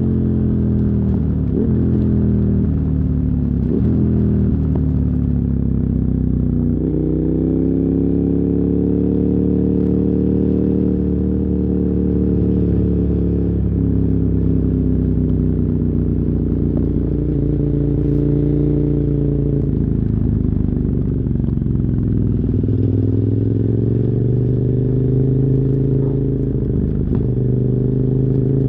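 2007 KTM 990 Super Duke R's 999 cc V-twin through dual Yoshimura carbon exhausts, riding on the road. Its note rises under throttle and falls back several times, with a steadier stretch in the middle.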